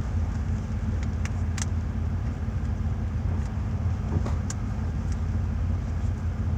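Steady low rumble of a car on the move, heard from inside the cabin, with a few faint brief clicks.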